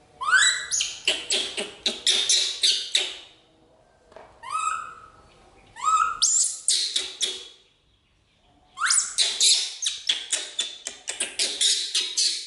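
Baby macaque screaming: shrill calls that each start with a rising squeal and run on as a fast series of high cries. They come in four bouts with short pauses between, the second bout brief.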